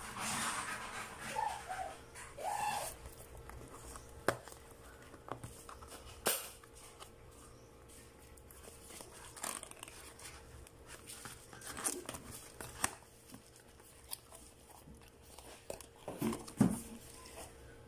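Cardboard box of a Zotek ZT102 digital multimeter handled and opened by hand: scattered rustles and scrapes of the flaps and inner box, with a few sharp clicks, the loudest about four seconds in.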